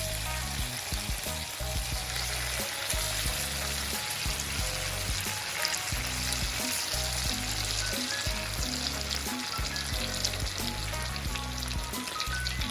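Slices of steamed dhokla sizzling steadily as they fry in hot oil, crisping up. Background music with low bass notes plays underneath.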